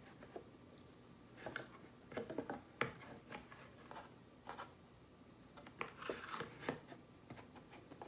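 The stainless-steel grounds cup of an OXO Brew conical burr grinder being pushed and wiggled into its slot in the base: a scatter of faint scrapes and light clicks. There is no distinct latching click; the cup doesn't clip in tightly.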